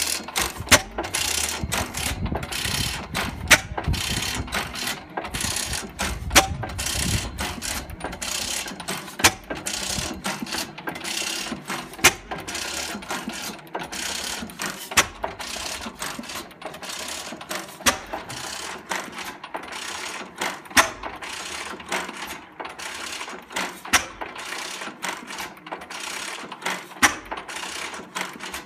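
12 hp Sattley throttle-governed stationary gas engine running slowly on propane, with a steady clatter of clicks and knocks and a sharper knock about every three seconds.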